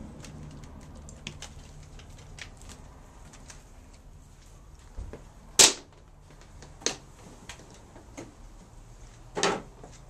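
Scattered light clicks and a few sharp knocks, the two loudest about halfway and near the end.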